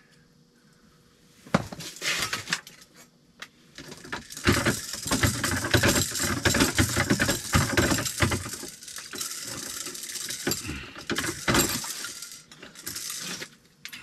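Dense clatter, clinks and knocks as a burbot is hand-lined up through an ice-fishing hole and landed. The sound starts about a second and a half in, is heaviest for a few seconds in the middle, and dies away just before the end.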